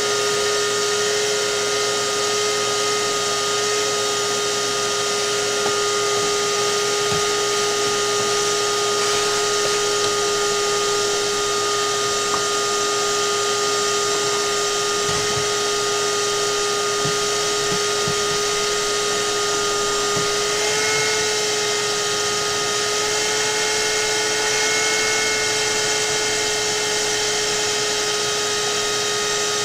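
A small electric motor running steadily with a high whine, its pitch shifting up slightly about two-thirds of the way through.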